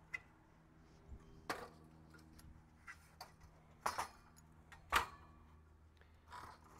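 Metal frame of a GCI Outdoor Slim Fold Cooking Station, a folding camp table, clicking and knocking as it is unfolded: a handful of separate sharp knocks about a second apart, the loudest about five seconds in.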